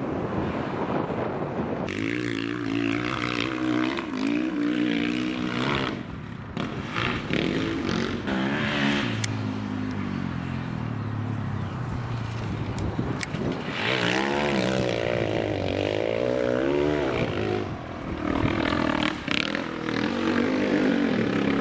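Sidecar motocross outfits racing on a dirt track, their engines revving up and falling back over and over as the riders work the throttle and change gear.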